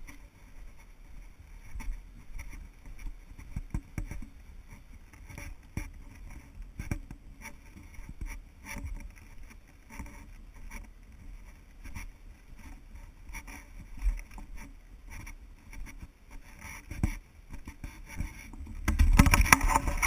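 Footsteps on a dirt trail and wooden steps, with irregular knocks and rustle from a handheld GoPro over a low rumble. About 19 seconds in the camera is handled up close: a loud rubbing and knocking on the camera body.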